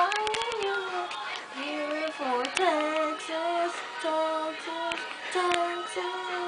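A girl's high voice singing a slow tune in held notes that step and slide between pitches, with a few faint clicks of handling noise.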